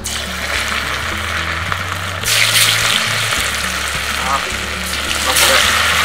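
Batter-coated fish pieces sizzling as they are dropped into hot oil for deep-frying in a cast-iron kadai. The sizzle swells louder about two seconds in and again about five seconds in.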